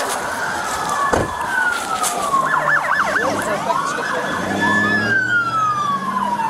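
Police car siren wailing in slow rising and falling sweeps, with a short stretch of fast yelping about two and a half seconds in.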